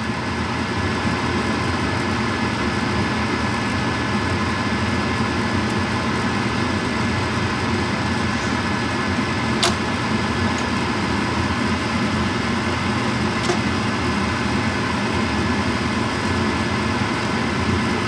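Gas furnace running with a steady mechanical hum. A sharp click comes about ten seconds in, as the Honeywell VR8345 gas valve opens and the burners light, and a fainter click follows a few seconds later.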